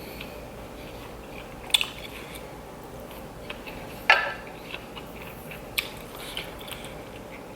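Eating sounds: crisp bites and chewing on food, a few sharp crunches over a quiet background, the loudest about four seconds in.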